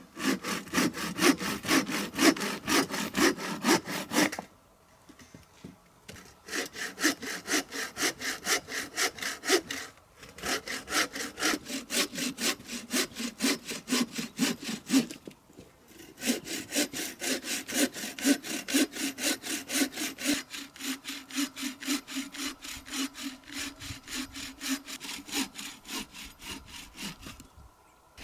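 Hand bow saw cutting through a log propped on a stump, in steady back-and-forth strokes, about three a second. It stops briefly three times between spells of sawing.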